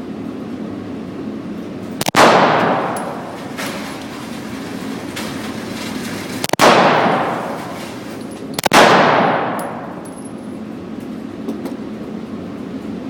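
Three 9mm Glock 17 pistol shots, a few seconds apart, with the last two closer together. Each is a sharp crack followed by a long echo that fades over about a second, over a steady background hum.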